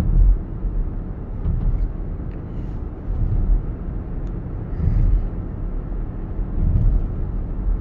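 Road and tyre noise inside the cabin of a NIO electric SUV cruising at about 66 km/h: a steady low rumble with no engine note, swelling briefly every second or two.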